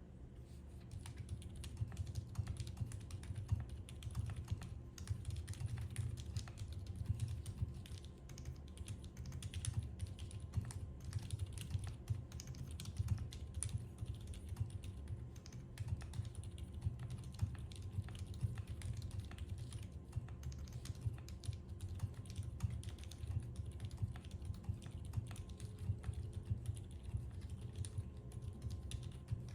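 Continuous typing on a Geonworks Frog Mini mechanical keyboard with stock Outemu Lime silent tactile switches, an aluminium plate, Cherry-profile keycaps and no foam. The keystrokes come in a quick, irregular run, starting about a second in, and sound low and muted rather than clicky.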